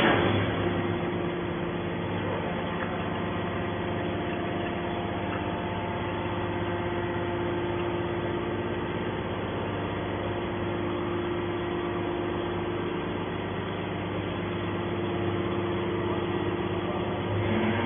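Hydraulic can baler's pump motor running with a steady hum.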